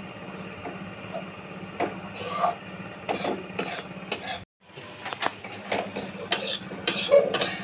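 Metal spatula scraping and clinking against a metal kadai while stirring gram flour roasting in ghee. The strokes are irregular, the sound cuts out briefly about halfway, and the sharpest clinks come near the end.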